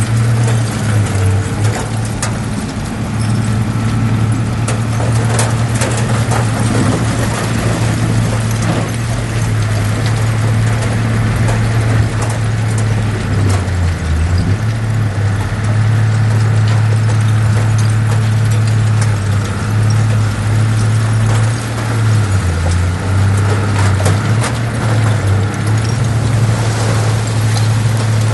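Heavy diesel engine of earthmoving equipment running steadily, its low drone dipping and rising a little in pitch, with scattered metallic clanks and knocks.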